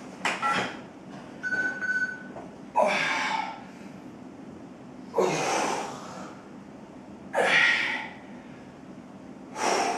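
A man's forceful breaths in time with the reps of a lying dumbbell chest press with leg raise: four hard exhalations, one about every two seconds.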